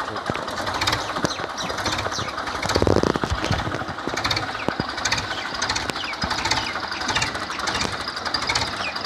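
Diesel tractor engine idling with a fast, even clatter, briefly louder about three seconds in.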